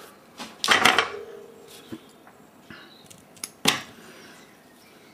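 Side cutters snipping the excess leads off a freshly soldered component on a small circuit board. A cluster of sharp metallic snips comes about a second in, with a short ring after it, and another single snip comes nearly four seconds in.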